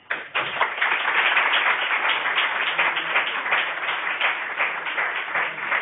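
Audience applauding: many people clapping together, starting suddenly and going on steadily.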